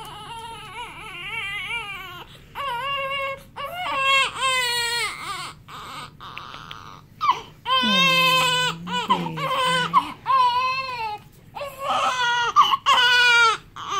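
Newborn baby crying in a string of high, wavering wails with short breaks for breath, upset at being washed.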